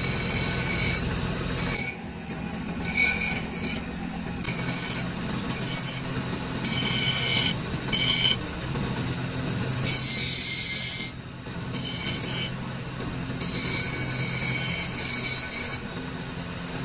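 Belt-driven grinding wheel running with a steady hum while a cast metal fries-cutter frame is pressed against it, giving repeated short bouts of high scraping and squealing as the casting's rough edges are ground off.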